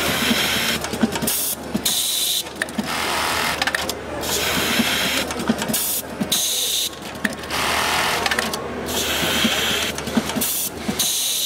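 Automatic loop hanger attacher running through its cycle: the direct-drive bartack sewing head stitches in short runs with rapid mechanical ticking, while a hiss cuts in and out irregularly, each stretch lasting about a second or less.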